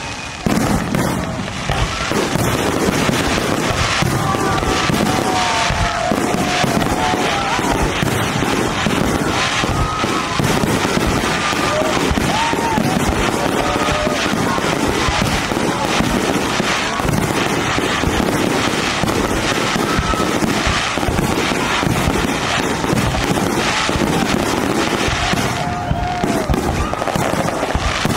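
Fireworks display firing without a break: a dense, continuous run of bangs and crackling bursts, with short whistles rising and falling over it.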